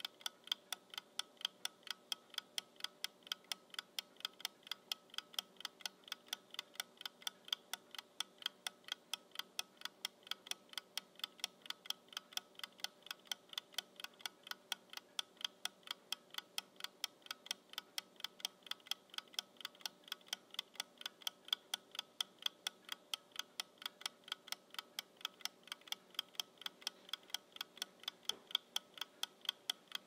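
Kitchen timer ticking steadily, an even, rapid run of sharp ticks at several per second.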